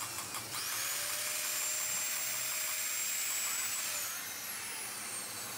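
A small high-speed rotary power tool spins up with a rising whine about half a second in, runs at a steady high pitch, then winds down from about four seconds in.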